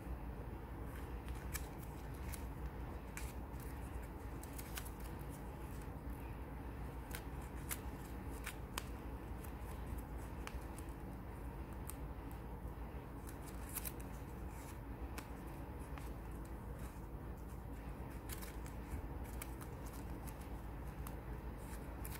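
Ribbon rustling and crinkling as it is threaded and pulled snug through woven folds by hand, with scattered small ticks and clicks over a steady low hum.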